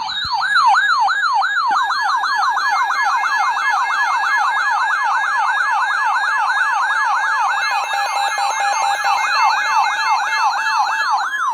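Electronic yelp-style siren alert tone, loud and steady in level, its pitch sweeping rapidly up and down about four to five times a second, sounded as a severe weather alert signal.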